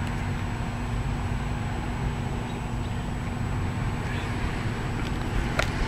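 Steady low mechanical hum, like a motor running, over open-air background noise, with one short click about five and a half seconds in.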